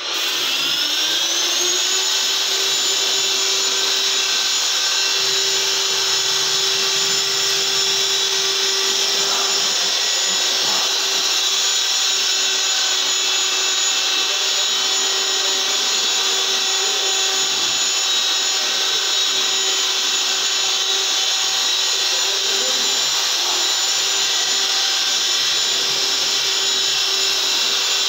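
Handheld electric wall putty sander with a dust-extraction hose, spinning up over the first couple of seconds and then running with a steady whine as the pad sands the wall.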